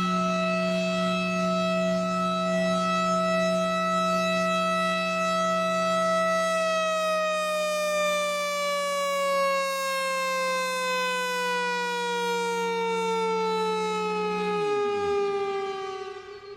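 Federal Signal Thunderbolt 1000 outdoor warning siren sounding a steady tone, then winding down with a slow, even fall in pitch from about six seconds in. A low drone underneath cuts off and sweeps quickly down near the end, and the siren grows quieter as it runs down.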